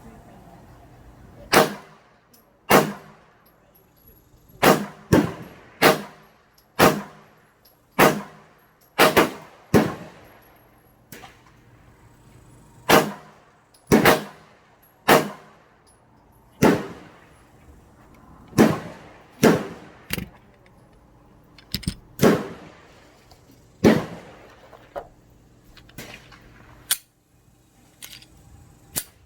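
Gunshots at a shooting range: some two dozen single shots at uneven intervals, a few in quick pairs, some louder than others, each followed by a short echo.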